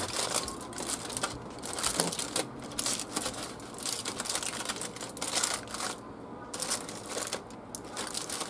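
Aluminium foil being folded and crimped shut by hand, crinkling in quick irregular bursts, with a brief lull about six seconds in.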